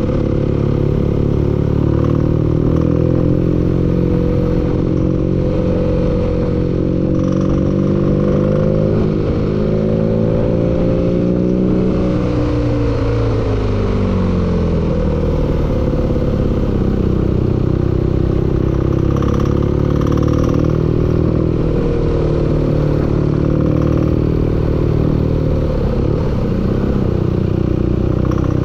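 Engine running with a knock, its speed rising slowly, dropping sharply about halfway through, then picking up again.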